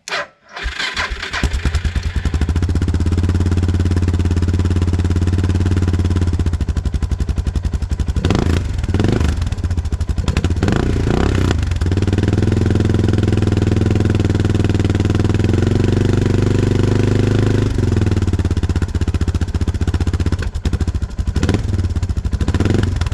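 Suzuki DR650 single-cylinder four-stroke engine, fitted with a Lexx slip-on exhaust with its baffle and spark arrester in, starts up and idles. It is blipped several times around the middle and held at a higher steady speed for a few seconds. It has a milder, toned-down rumble.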